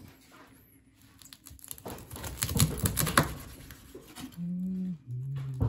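Knife crunching through the crisp, crackled skin of hot roast pork belly: a dense run of crackles beginning about two seconds in and lasting about a second and a half. Two short, steady low tones follow near the end.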